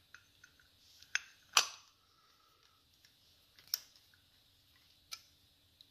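Scattered sharp clicks and knocks of hand tools and small metal parts being handled, about seven in all, the loudest about one and a half seconds in with a brief ring.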